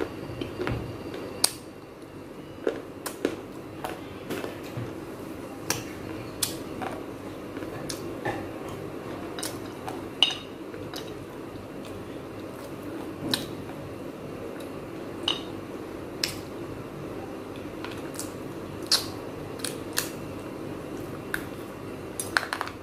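Small baked-clay pot pieces being bitten and crunched between the teeth: sharp, brittle cracks, about one a second at irregular intervals.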